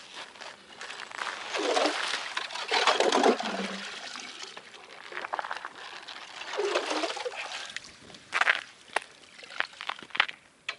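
Water and slush sloshing and splashing at a freshly drilled hole in river ice, in uneven surges, with a few sharp knocks near the end.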